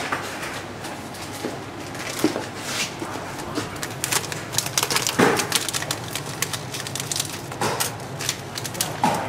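Irregular clicks, knocks and rustling from handling a plastic powder canister taken out of a coffee vending machine, busiest in the middle.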